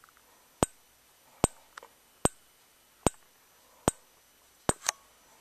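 Simplex 4904-9137 remote strobe, a 15 candela free-run model, flashing. Each flash gives a sharp click, about one every 0.8 seconds, with a second click close behind one near the end.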